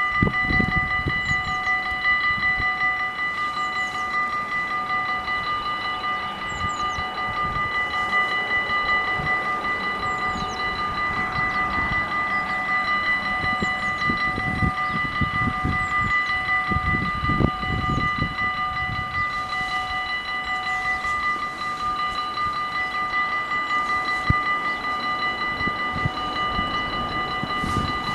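Dutch level-crossing warning bells ringing continuously while the crossing is closed: a steady ringing at several pitches, the lowest one pulsing. Irregular low rumbles come and go underneath.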